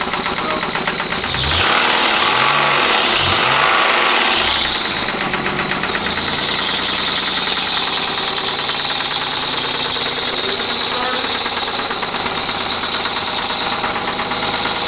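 Nissan 300ZX (Z32) 3.0-litre V6 running with a fast, steady knock, its revs briefly rising and falling a few times between about two and four seconds in. The knock is the fault the engine is to be rebuilt for.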